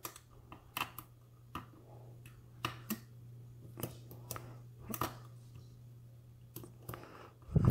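Metal lock picks clicking and scraping in a pinned pin-tumbler lock cylinder: a dozen or so sharp, irregular metallic clicks over a faint steady low hum.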